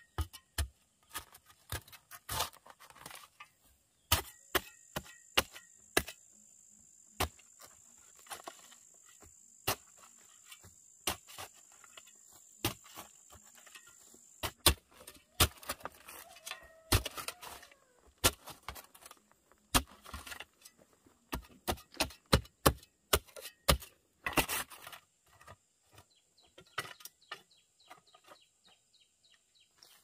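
Metal shovel blade striking and scraping into rocky, stony soil in irregular sharp strokes, with loose dirt and stones falling. A steady high insect buzz, like a cicada or cricket, runs behind for stretches.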